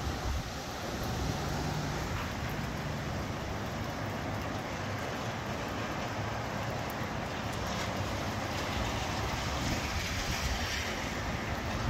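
Strong gusty wind with rain: a steady rushing through the trees, with gusts buffeting the microphone as low rumble, swelling a little near the end.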